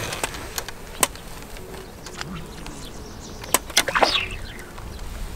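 A few sharp clicks and knocks: one about a second in, then three in quick succession near the middle, the last trailing into a short rustle.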